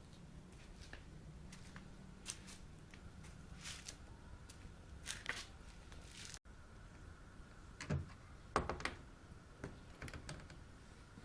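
Scattered light clicks and rustles of objects being handled, over a faint steady hum; the loudest few come about eight to nine seconds in.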